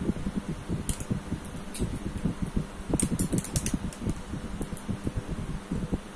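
Plastic Lego parts clicking and knocking as a hand works the snow cannon on a Lego 60222 snow groomer, with a single click about a second in and a quick run of clicks about three seconds in, over a low steady rumble.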